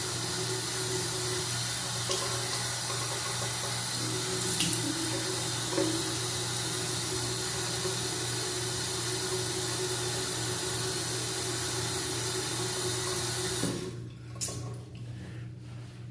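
Water running steadily from a tap into a bathroom sink, shut off abruptly near the end.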